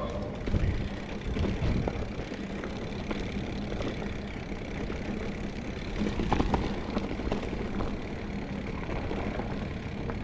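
Trek Fuel EX 5 full-suspension mountain bike rolling along a dirt trail: continuous tyre and drivetrain rattle with a steady hum. It jolts over bumps several times between about half a second and two seconds in, and again around six seconds in.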